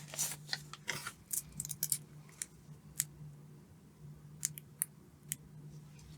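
Small sharp clicks and snips of hands handling small parts and tools, a quick run in the first two seconds and then scattered single clicks, over a low steady hum.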